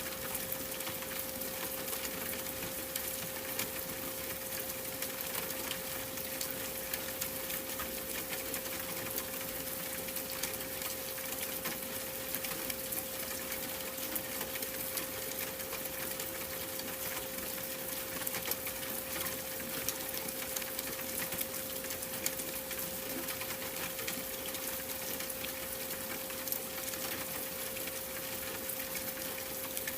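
A steady pure tone at 528 Hz held unbroken over a continuous rain-like hiss with fine crackles.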